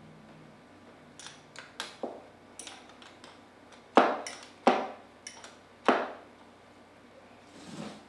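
Metal clinks and knocks from a wrench and a Comet P40 diaphragm pump being handled on a tabletop. A few light clicks come in the first two seconds, then three sharp knocks about four to six seconds in.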